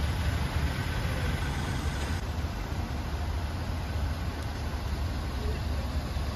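A vehicle engine idling: a steady low rumble under even street noise.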